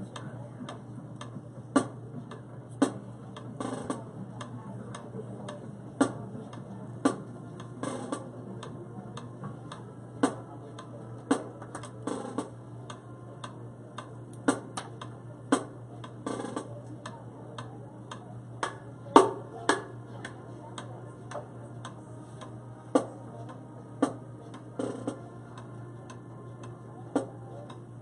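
Sharp, light percussion taps about a second apart, often three in a row with a pause of about two seconds between groups, over a steady low hum.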